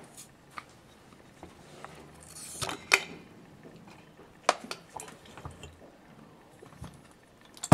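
Metal parts of a disassembled Makita SDS-Max demolition hammer knocking and clinking against each other and the workbench as they are handled. There are a few separate sharp clicks, the loudest about three seconds in and again about a second and a half later, with a short rustle just before the first.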